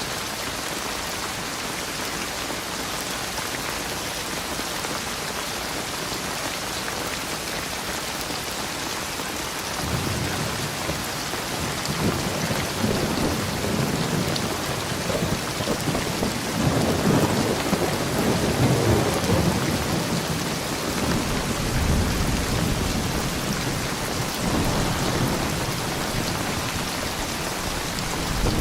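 Steady heavy rain hissing. About ten seconds in, a long roll of thunder rumbles in, builds to its loudest in the middle, then keeps rolling in waves over the rain.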